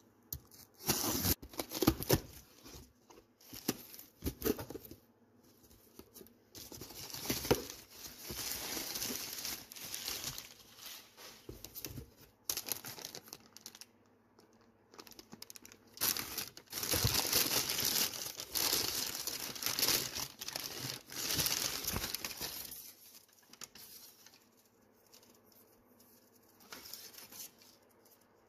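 A cardboard parcel being unpacked: packing tape slit with a utility knife and torn, then kraft packing paper and a plastic bag crumpled and crinkled in irregular bursts of rustling, the busiest stretch in the second half and quieter near the end.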